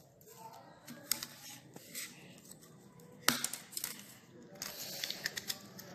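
Scattered clicks and snaps with light scraping as a thin metal pry rod levers a Micromax phone's plastic frame away from its circuit board; the sharpest snap comes a little past three seconds in, followed by a quick run of smaller clicks.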